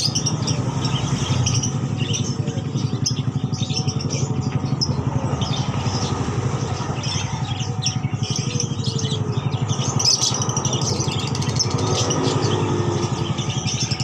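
Many caged birds chirping and twittering in short high calls over the steady, even running of a small engine.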